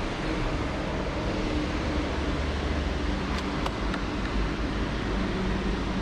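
Steady outdoor traffic noise with no engine clearly starting, and three light clicks in quick succession a little past the middle.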